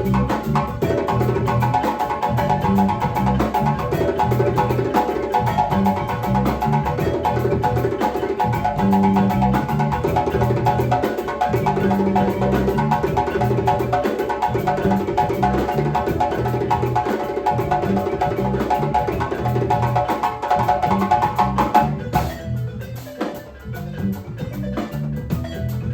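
Percussion music with rapid repeated pitched notes over a driving rhythm of drums and sharp clicking strikes. About 22 s in the pitched part drops out, leaving sparser, quieter drumming.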